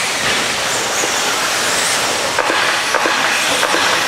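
Several radio-controlled stadium trucks racing on a dirt track: a steady whirring hiss of motors and tyres on the dirt, with a few sharp clacks from trucks landing and striking the track from about two and a half seconds in.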